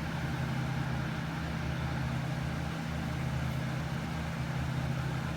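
A steady low mechanical hum with a hiss over it, starting abruptly and holding even throughout.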